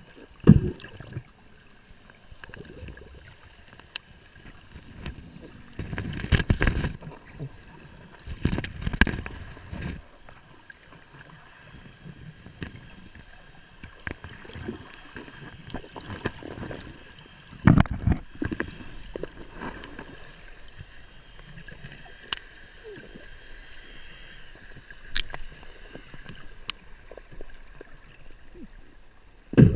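Shallow water sloshing and gurgling, with a few louder splashes or knocks along the way.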